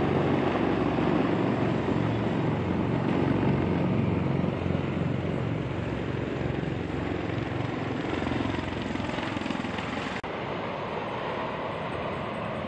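Formation of military helicopters and V-22 Osprey tiltrotors flying over: a loud, steady rumble of rotor noise, heaviest in the low end.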